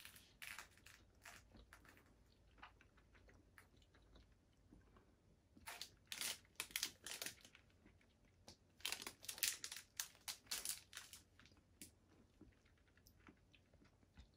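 Quiet chewing of orange-flavoured chocolate, mixed with crinkling of the bar's foil wrapper: two bursts of crackling clicks about six and nine seconds in, with softer ticks between.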